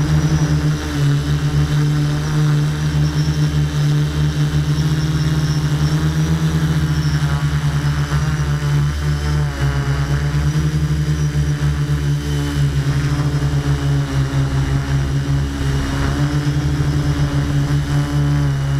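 Electric motors and propellers of a multirotor drone humming steadily up close, with a fast wavering beat in the hum.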